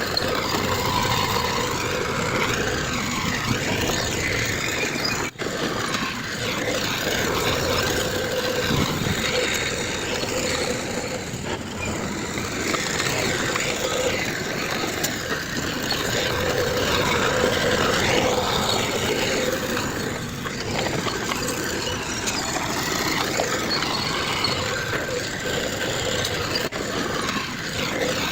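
Heavy diesel construction machinery, bulldozer and dump truck engines, running steadily, with a brief break about five seconds in.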